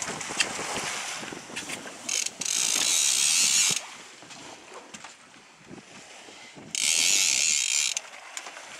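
Fishing reel's ratchet drag buzzing in two bursts, one about two seconds in lasting under two seconds and a shorter one near the end, as a small shark pulls line off the reel.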